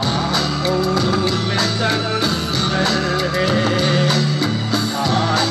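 A man singing into a handheld microphone over backing music with guitar and a steady drum beat.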